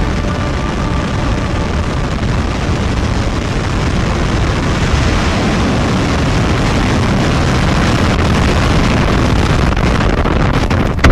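Starship prototype's Raptor rocket engines firing during the landing burn: a dense, steady rumbling rush of exhaust that grows slowly louder toward touchdown.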